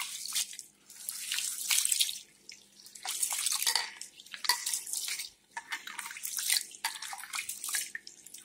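Water sloshing and swishing in an aluminium pot as a hand rubs and stirs raw rice and roasted cowpeas to wash them. The swishes come in irregular waves, about one every second or two.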